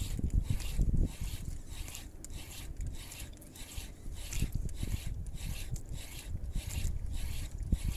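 Spinning fishing reel being cranked against a hooked fish, giving a rhythmic rasping whirr with each turn of the handle, about two a second, over a low rumble.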